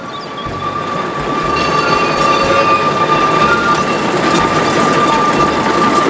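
Small diesel shunting locomotive dressed as Rusty rolling slowly along the rails with its wagons: rail and running noise that builds over the first couple of seconds, with a steady high-pitched whine.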